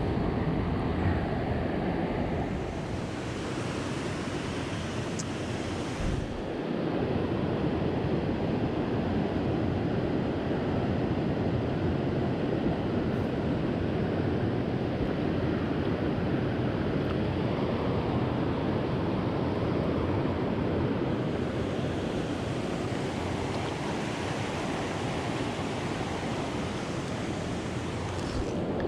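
River water rushing steadily, an even noise that holds without break.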